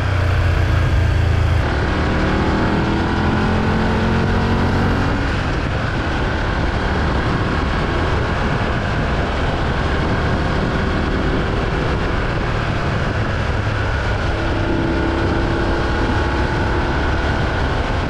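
Wind noise inside a Shoei GT-Air 3 full-face helmet, picked up near the rider's ear at about 80 km/h on a motorcycle: a loud, steady rush with the motorcycle engine's note rising in pitch over the first few seconds. At this speed the wind noise is obvious and drowns out the helmet intercom's FM radio.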